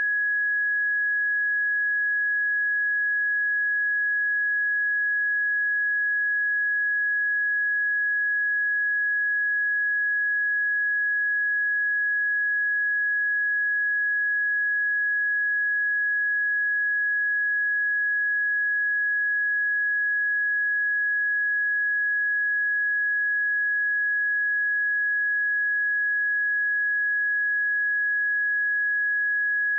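A pure 1673 Hz sine-wave test tone, held steady at one pitch and level throughout.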